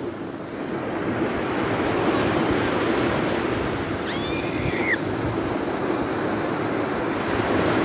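Small sea waves breaking on a beach in a steady rush. A brief high-pitched squeal, under a second long, sounds about four seconds in.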